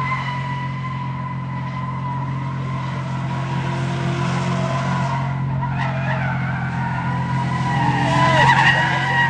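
A car drifting: tyres squealing in a long, held note over the steady drone of the engine, the squeal wavering and growing loudest about eight seconds in.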